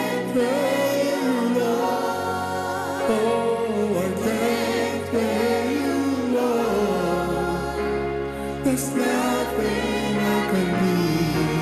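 Gospel worship song performed live: a lead singer and a backing choir singing over a Yamaha Montage 8 keyboard, with long held bass notes underneath that change a few times.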